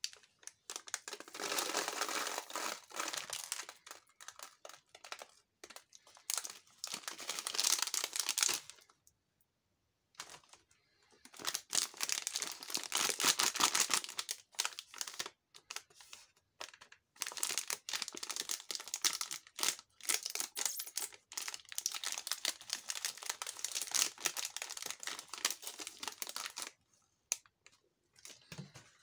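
Plastic snack wrappers crinkling and crackling in three long spells with short pauses between, as a packaged soft cake's wrapper is handled and torn open.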